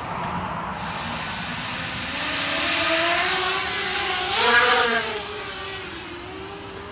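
A 250-class mini FPV racing quadcopter taking off. The whine of its motors and propellers rises in pitch and builds to its loudest about four and a half seconds in, then drops in pitch and fades as it flies off.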